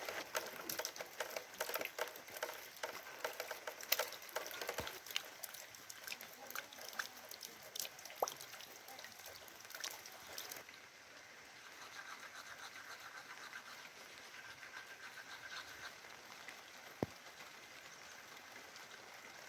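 Light rain dripping and pattering, with many irregular sharp drops ticking over a soft hiss. About ten seconds in, the ticking mostly stops and a quieter, steady rain hiss remains.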